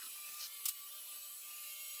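Robot vacuum cleaner running: a steady motor and brush whir with a faint hum, and two short clicks about half a second in.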